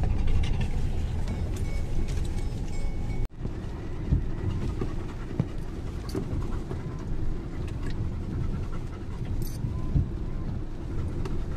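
Road noise inside a Tata Altroz crawling over a potholed, waterlogged road: a steady low rumble with occasional knocks as the tyres and suspension drop into potholes. The sound briefly cuts out about three seconds in.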